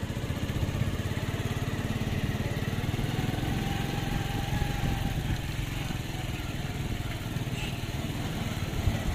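Single-cylinder Honda motorcycle engine running steadily while the bike is ridden, heard close up from the rider's seat, with a fast, even low pulsing throughout.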